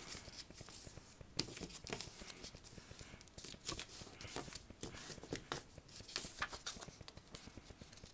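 A sheet of paper being folded and creased by hand, with a string of short, irregular rustles and crinkles.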